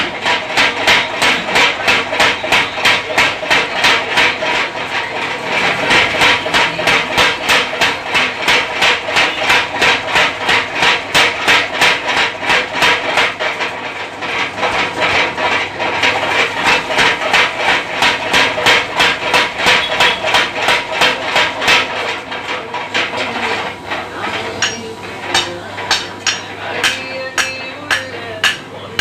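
Blacksmith's hammer blows on metal, a steady rapid run of strikes at about three a second. About 22 seconds in the blows turn sparser and ring more brightly.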